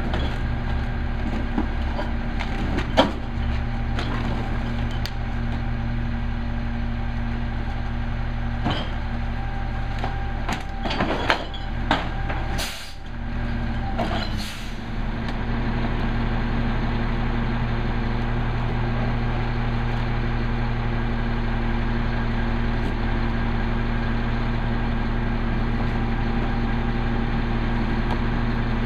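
Peterbilt 320 recycling truck's diesel engine idling steadily, with knocks and clatter of carts and recyclables at its rear-loader hopper. There are two short air hisses about halfway through.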